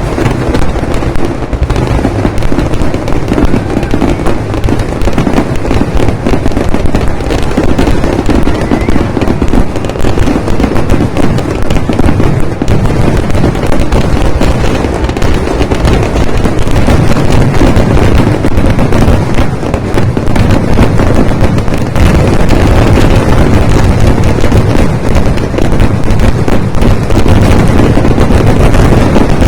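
Vedikkettu fireworks barrage: a continuous rapid run of overlapping firecracker and shell bangs with no pause, very loud, growing slightly louder about three quarters of the way through.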